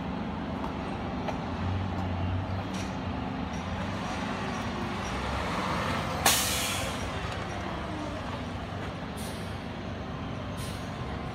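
Fire engine's diesel running as the rig pulls out and stops across the street, with a loud air-brake hiss about six seconds in and two shorter hisses near the end.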